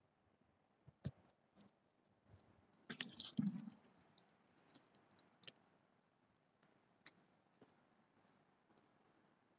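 Near silence with faint scattered clicks, one about a second in, and a brief rustle about three seconds in: handling noise.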